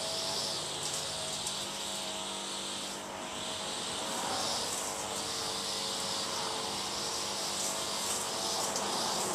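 Back-yard ambience: a high, insect-like hiss that swells and fades about once a second, over a faint, steady, low engine hum.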